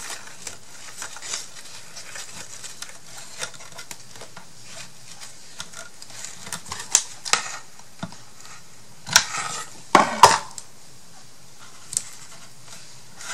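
Hand handling sounds of twine and glue being worked on a wooden box: scattered small clicks, taps and rustles, with a few louder clatters about seven, nine and ten seconds in.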